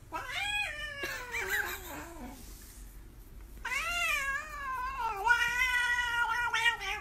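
Tabby cat yowling: two long, drawn-out meows. The first slides down in pitch over about two seconds; the second, longer one starts about three and a half seconds in and is held with a wavering pitch.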